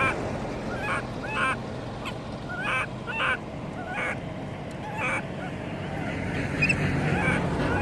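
Infant long-tailed macaque crying: short, squealing distress cries that bend up and down in pitch, repeated irregularly every half second to a second.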